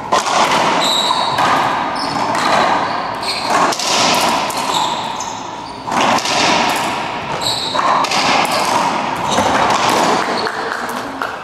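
Racquetball rally: the ball cracks off racquets and the court walls again and again, each hit echoing around the enclosed court, with short high squeaks of court shoes on the hardwood floor. The hits stop near the end as the rally finishes.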